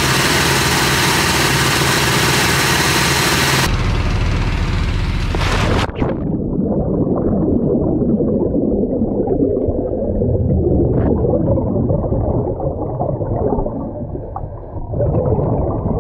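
A gas-engine air compressor runs steadily as a surface-supplied diver's air source. About six seconds in the sound goes underwater: the high end vanishes abruptly, leaving muffled rumbling and gurgling bubbles.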